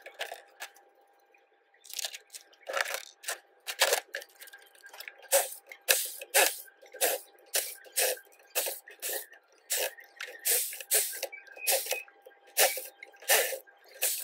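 Hammer blows on a hand impact driver set in a Yamaha RX100 crankcase screw, a sharp metallic strike on each blow as the screws are knocked loose. After a couple of faint knocks and a short lull, the strikes start about two seconds in and go on at roughly two a second, a little uneven.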